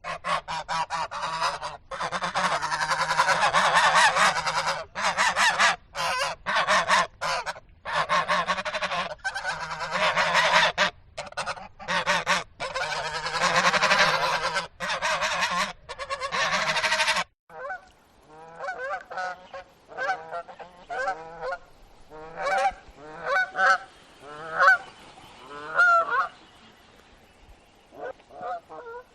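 A large flock of geese honking over one another in a dense, continuous chorus. About two-thirds of the way through it cuts off abruptly, giving way to a few geese honking separately, in short calls roughly one a second.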